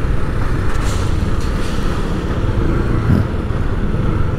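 Motor vehicle engine running with road noise, a steady low hum throughout.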